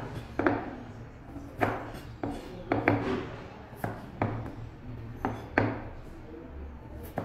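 Chef's knife cutting through a peeled potato onto a plastic cutting board: about ten sharp, uneven knocks of the blade on the board, one or two a second.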